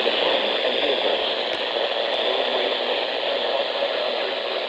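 Steady hiss of radio static from a receiver.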